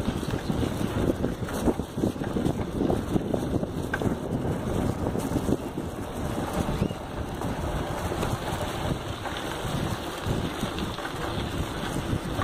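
Wind buffeting the microphone over the rumble and rattle of a bicycle riding over a rough dirt trail, with many small knocks from the bumps.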